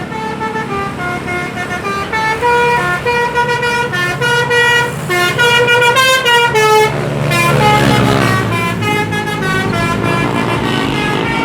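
Bus 'telolet' musical air horn playing a rapid melody of short stepped notes over the bus's engine running. About seven seconds in, a louder rush of engine noise swells briefly, then the horn melody carries on.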